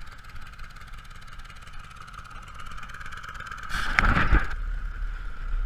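Small engine of a two-wheel walk-behind tractor running steadily at idle. About four seconds in there is a louder stretch of noise with a few knocks.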